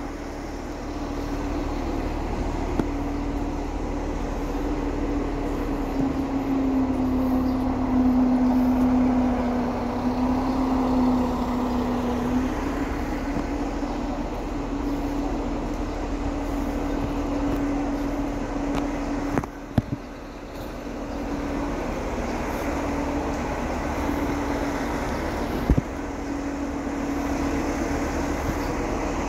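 A vehicle engine drones steadily on the move over road noise, dipping slightly in pitch and growing louder for a few seconds about a quarter of the way in. Two sharp knocks come about two-thirds of the way through and again near the end.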